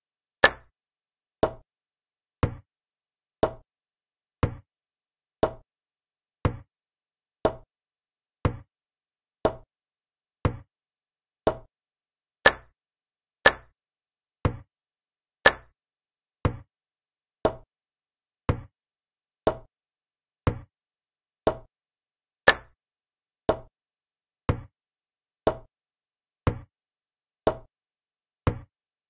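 Move sound effect of a digital chess board, a short click about once a second as each move is played. Five clicks are louder and sharper, one for each capture: just after the start, twice a little before halfway, once soon after that, and once about three-quarters through.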